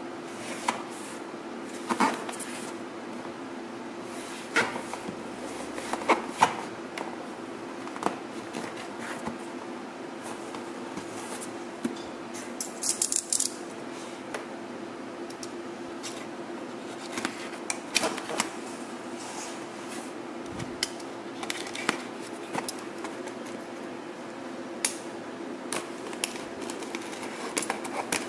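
Cardboard shipping box being handled and turned over on a table: scattered taps, knocks and scrapes, with a brief high hissing scrape about 13 seconds in. A steady low hum runs underneath.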